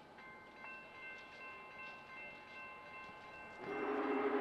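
A bell rings steadily with several clear overlapping tones. About three and a half seconds in, a much louder low tone with a rushing hiss cuts in as the train arrives.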